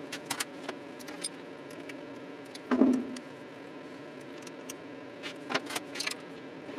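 Scattered light metallic clicks and taps of a hand tool on the bolts of an alternator bracket on a Ford Zetec engine as the bolts are nipped up, with one louder, duller knock about three seconds in.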